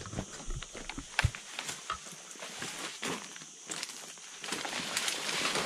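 Footsteps on rough ground: irregular crunching steps. A hiss swells up over roughly the last second.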